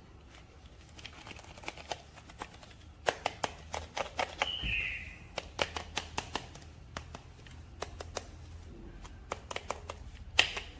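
Hands handling a plastic action figure and its packaging: a run of sharp plastic clicks and rattles, densest a few seconds in, with a brief high squeak partway through and one loud click near the end.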